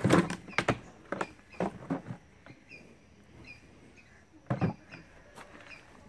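Hard plastic clicks and knocks from a Kärcher WD1 wet-and-dry vacuum being handled at its hose inlet and opened, a quick cluster in the first two seconds and another pair about four and a half seconds in. Birds chirp faintly.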